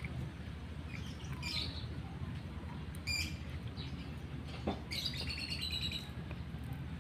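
Small birds chirping: short, high, quickly repeated runs of chirps about three times, the longest near the end, over a steady low background hum.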